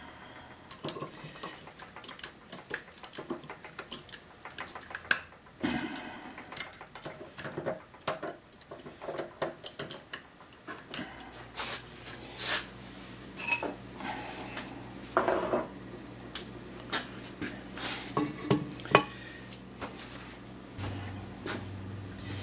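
Metal lathe parts and hand tools clinking and tapping in irregular knocks as the drive pulley is tightened back onto its shaft. A low steady hum comes in about halfway and grows stronger near the end.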